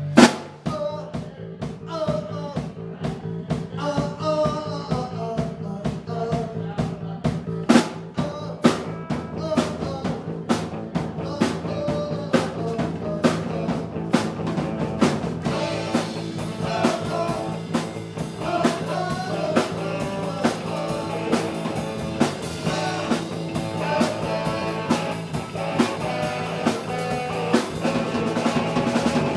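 Live rock band playing: electric guitar over electric bass and a drum kit, with a loud drum hit right at the start.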